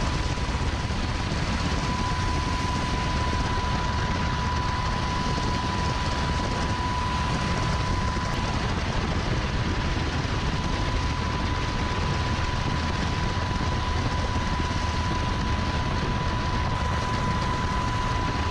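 Helicopter hovering, heard from inside the cabin at the open door: a loud, steady rotor and engine din with a constant whine running through it.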